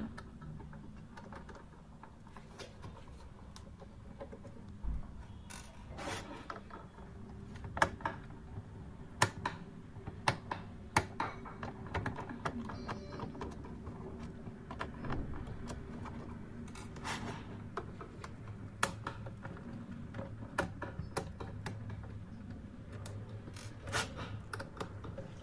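Small screwdriver unscrewing screws from a computer keyboard's plastic underside, with scattered irregular clicks and ticks of the tool and the plastic case being handled, over a faint steady hum.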